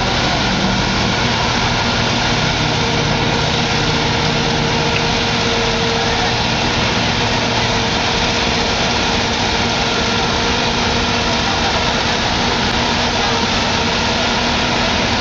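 Heavy diesel engines of an excavator and a dump truck running steadily while the excavator works its boom and bucket against the truck. A deeper engine note sounds for the first half and fades out about eight seconds in.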